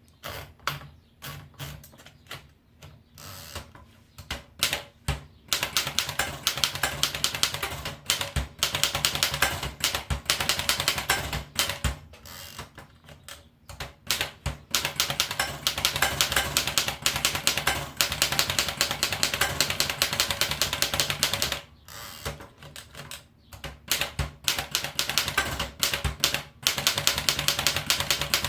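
Erika Model S manual typewriter being typed on: a few slow, separate keystrokes at first, then long runs of rapid typing with two short breaks.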